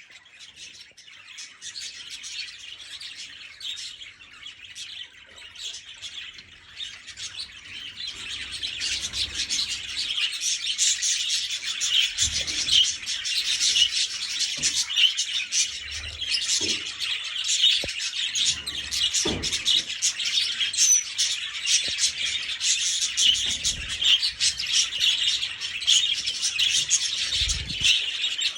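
A flock of budgerigars chattering and chirping continuously, the chatter growing louder over roughly the first ten seconds.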